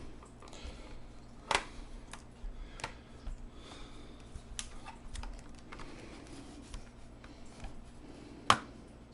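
Plastic case clips of a Dell Inspiron 17 5767 laptop clicking as the case is pried apart along its edge: scattered sharp clicks, the loudest near the end.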